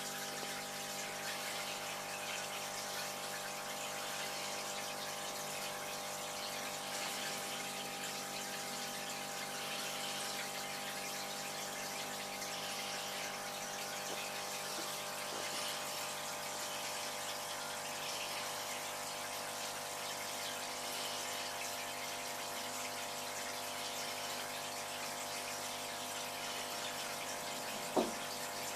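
Aquarium filter and water pump running: a steady rush of moving water over a constant mechanical hum, with a single short knock near the end.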